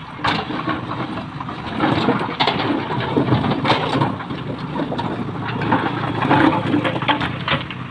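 JCB 3DX backhoe loader's diesel engine running under load while its bucket scrapes and knocks through loose stones, with repeated irregular clattering of rock.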